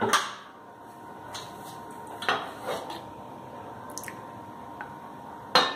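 Cookware clatter around a frying pan on a gas stove: a sharp metal knock at the start, a few softer clinks in the middle, and another sharp knock near the end.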